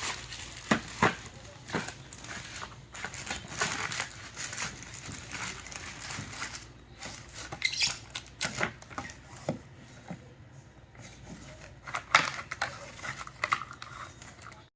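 Hard plastic clicks, taps and light rustling from handling a plastic action figure and its parts, in irregular bursts with a few sharper knocks, the loudest about twelve seconds in.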